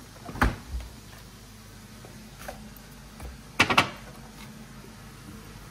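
Several sharp kitchen knocks and clatters, the loudest a quick double knock about three and a half seconds in, over the steady hum of a range hood fan.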